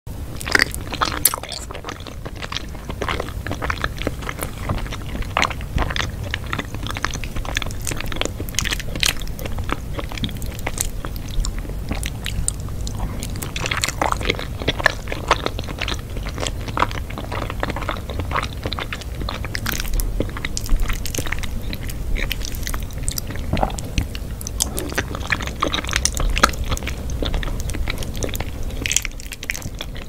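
A person eating: biting and chewing crunchy food, with many irregular sharp crunches.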